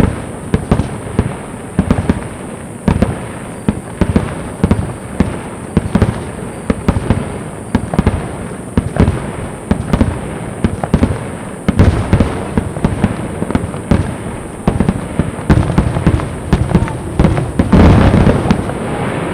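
Aerial fireworks shells bursting in a rapid-fire barrage, with sharp booms following each other several times a second. Near the end the bursts merge into a louder, longer rumble.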